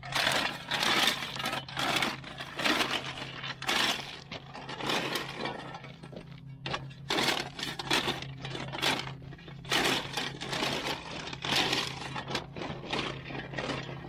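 Steel shovel scooping and tossing field line rock (drainage gravel), a scrape and rattle of stones about once a second, over a steady low hum.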